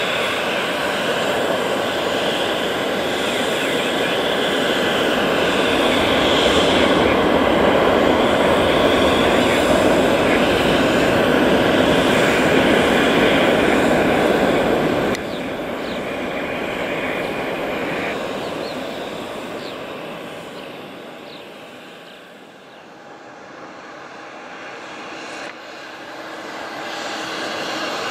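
Boeing 747 jet engine noise on a runway: a steady rushing roar that swells and then drops abruptly about halfway through. It fades away, and in the last few seconds it rises again as a SkyLease Cargo 747 freighter comes along the runway.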